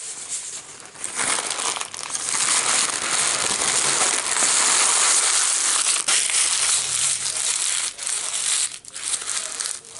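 Subway sandwich wrapper and bag being crumpled up by hand: a loud, dense crinkling and crackling that starts about a second in and dies away near the end.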